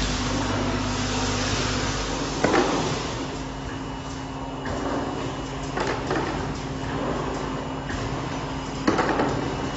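Automatic screwdriving machine for electrical wire boxes running its cycle: a steady machine hum with a sharp mechanical clack about every three seconds.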